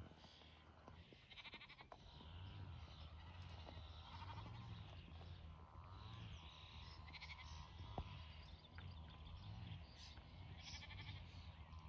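Sheep bleating faintly, a few wavering calls a few seconds apart.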